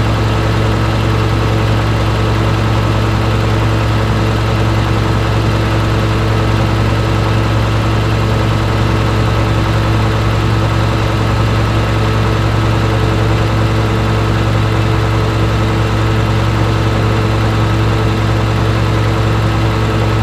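Heavy-equipment diesel engine idling steadily with a strong low hum. The engine is said to be overheating from compression leaking into the cooling system.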